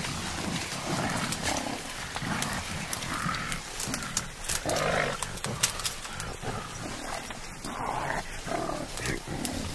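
Mountain gorillas calling in a bamboo thicket, with repeated short calls over rustling and sharp cracks of bamboo stems as one climbs.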